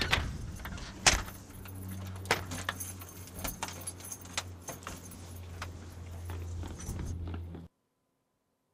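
A bunch of keys jangling and clicking against a front-door lock as the door is unlocked, many small metallic rattles and clicks over a steady low hum. The sound cuts off suddenly near the end.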